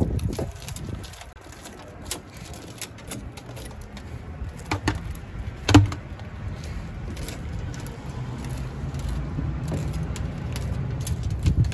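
Utility knife blade on a pipe handle scraping and cutting old window glue from the metal frame of a van's rear-door window opening, giving scattered clicks and knocks, the loudest about six seconds in. A low engine rumble in the background grows louder over the last few seconds.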